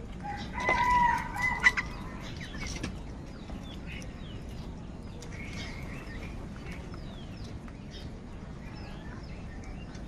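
House crows calling at a feeding spot: one loud, drawn-out call about a second in, then fainter short calls mixed with the chirps of mynas. A sharp tap sounds near the end of the loud call.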